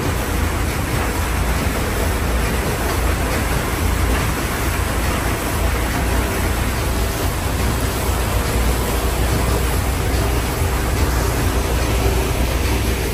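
Paddle steamer's paddle wheel churning through the water: a loud, steady rushing wash over a low rumble.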